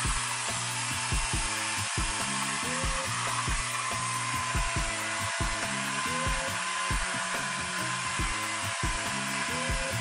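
Small electric motor and fan of a kit-built toy robot vacuum cleaner running steadily with a whirring hiss, over background music.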